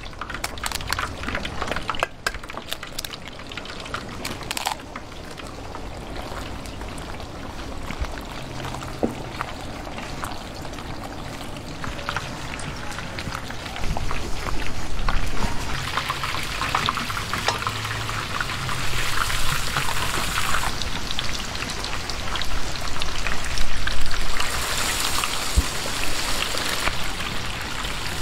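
Food frying in hot oil: a dense crackle and sizzle that grows louder about halfway through.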